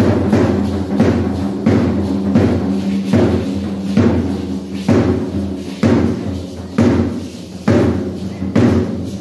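Dance music with a heavy drum struck about once a second over steady low held tones.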